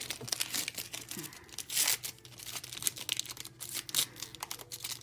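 Foil trading-card pack wrappers crinkling and tearing open, with a dense run of irregular crackles and one louder stretch about two seconds in.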